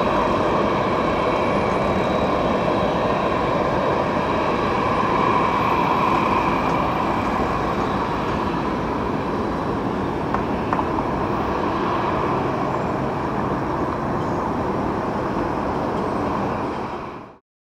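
Twin-engine Boeing 787's jet engines running at taxi power as the airliner taxis, a steady rushing jet noise with a faint high whine. It fades out near the end.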